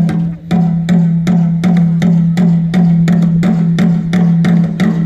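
Traditional Karbi dance music: rapid sharp percussion strikes, about four or five a second, over a steady low drone.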